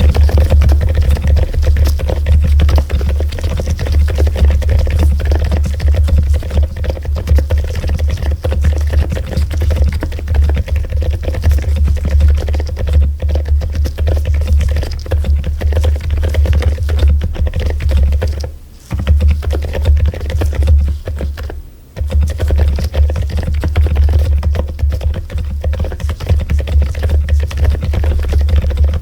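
Mechanical keyboard typed on quickly and continuously, a dense run of key presses with a low, deep undertone. It breaks off briefly twice, about two-thirds of the way through.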